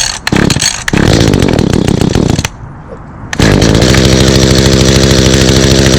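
Echo HC150 hedge trimmer's 21.2cc two-stroke engine being pull-started: it fires and runs for about a second and a half, then dies. About a second later it catches again and keeps running steadily.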